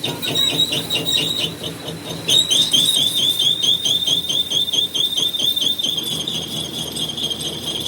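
A high-pitched whine pulsing about five times a second, louder from about two seconds in, that settles into a steady tone near the end, over a low mechanical hum.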